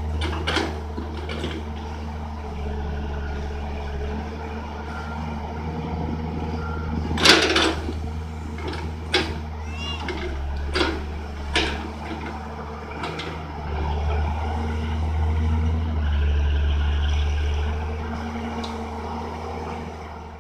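Hyundai tracked excavator's diesel engine running steadily as it works, with several sharp knocks, the loudest about seven seconds in. The sound fades out at the end.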